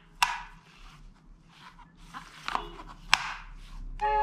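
Toy gun being handled: a few sharp plastic clicks, the loudest just after the start and about three seconds in.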